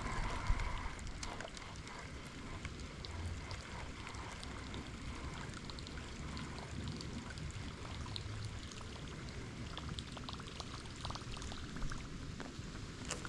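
Light rain falling, with scattered drops ticking over a steady watery hiss.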